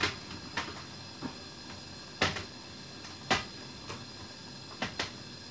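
Scattered light knocks and clicks, about eight in all, of household items being handled and set down. The two loudest come a little after two and a little after three seconds in.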